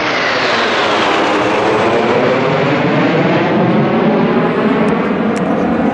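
Jet noise from a formation of JASDF Blue Impulse Kawasaki T-4 jets with twin turbofans. The noise is loud and steady, with a whine that falls in pitch as the jets pass overhead and draw away.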